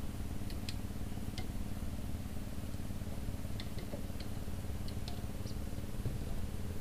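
Small boat engine running at a steady low speed, with a few short high chirps scattered over it.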